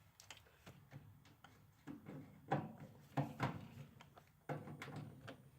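Small clicks and metallic clinks of hand tools and screws while the screws are worked out of a microwave's sheet-metal casing, with a couple of louder knocks about two and a half and three seconds in.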